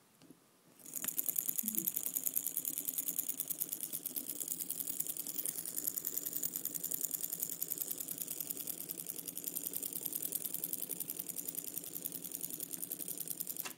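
The tiny electric motor and brass flywheel and gear linkage of a steampunk USB-drive model engine running with a fast, even clatter. It starts about a second in and cuts off suddenly near the end.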